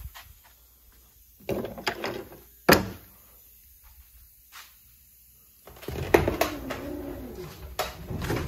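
Handling noises in a workshop: a few clicks and knocks, one sharp knock about three seconds in, then from about six seconds a longer stretch of rattling and scraping with a wavering tone through it.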